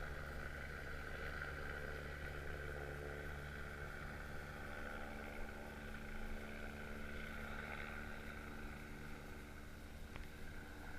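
Sailboat's engine running steadily while motoring slowly through pack ice, a low even drone with a fainter higher hum over it.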